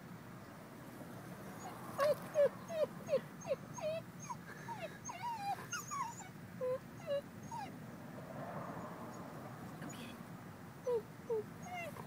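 Schnauzer whimpering and whining in short, high cries, a quick string of them from about two seconds in, then two more near the end. She has her head in a culvert pipe and is eager to get at something inside.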